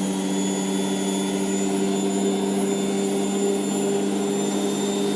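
Hotpoint WMF720P washing machine spinning at high speed on its 1200 rpm final spin: a steady motor whine over the rush of the drum, holding one pitch throughout.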